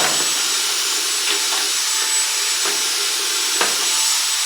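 Vacuum cleaner running steadily with a thin high whine, sucking lint and dirt out of a dryer, with a few brief knocks of the nozzle.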